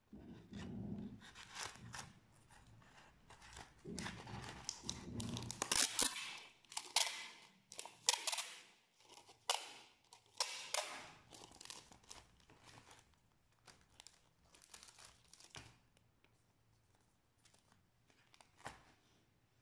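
Clear Scotch packing tape being pulled off its roll in a series of short rips and pressed around a cardboard tube, with the crackle of handling the tape and cardboard.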